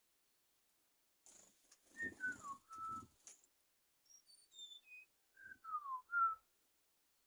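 Songbird, a suligan gunung, singing clear whistled notes. It gives a few falling whistles about two seconds in, then a quick run of high notes stepping down in pitch, then more falling whistles near the end. A soft rustling sounds alongside the first whistles.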